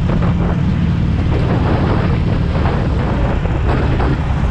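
Harley-Davidson Sportster Iron 883's air-cooled V-twin engine running steadily while riding, with wind buffeting the microphone.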